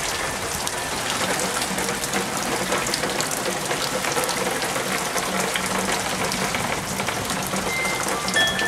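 Rain falling steadily in a shower, with water running and splashing off the eaves.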